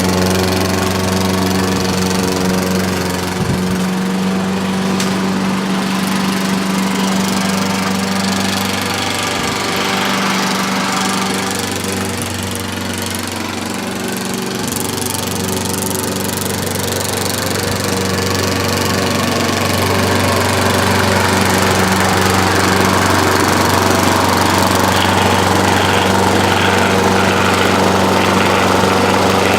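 Walk-behind gas lawn mower running steadily while mowing grass. It is a little quieter about halfway through and louder again later.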